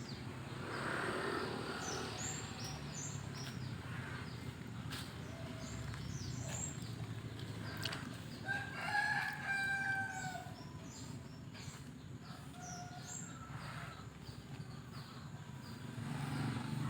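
A rooster crows once near the middle, a call of about two seconds that drops slightly at its end. Small birds chirp in short high notes throughout, over a low steady hum.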